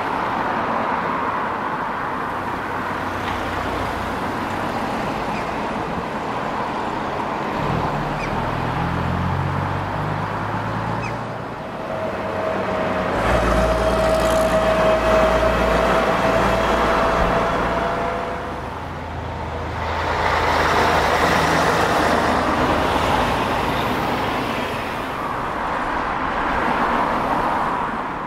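Buses and traffic running past, with a heavy bus engine building up in pitch about eight seconds in and running loudest through the middle, where a thin steady whine sounds briefly. A second loud swell of vehicle noise follows about twenty seconds in.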